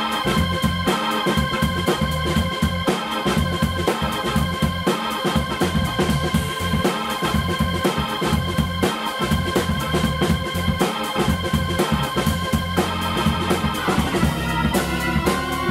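Hammond organ and drum kit playing a fast funk groove. The organ holds a sustained high chord over low, punchy bass notes while the drums and cymbals keep a busy, even beat. About 14 seconds in, the held chord breaks into shorter, choppier organ notes.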